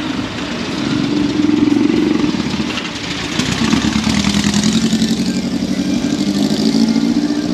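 A vehicle engine running steadily close by, its pitch a little higher about a second and a half in and settling lower from about four seconds on.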